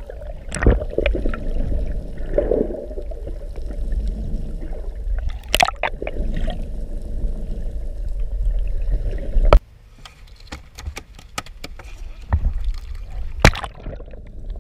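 Water heard through a camera held underwater: a muffled low rumble of moving water broken by several sharp knocks. About two-thirds of the way through, the rumble drops off suddenly to a quieter wash with scattered clicks.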